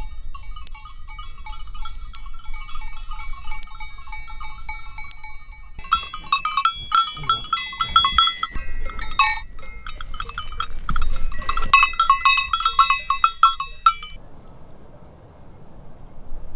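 Cowbells on grazing livestock clanking unevenly. They are moderate at first, then louder and busier from about six seconds in, and stop abruptly a couple of seconds before the end, leaving a faint hiss.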